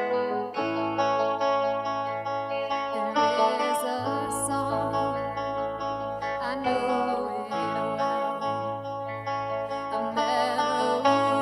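Guitar-led worship song music over a steady low bass note, with a melody line that wavers in pitch from about three seconds in.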